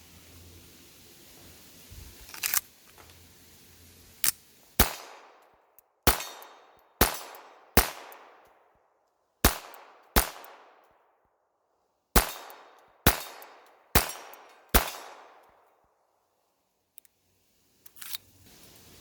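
Ruger Mark IV .22 LR semi-automatic pistol firing ten shots at an uneven pace, in two strings with short pauses, each crack trailing off in echo. A couple of sharper clicks come before the shooting and one after.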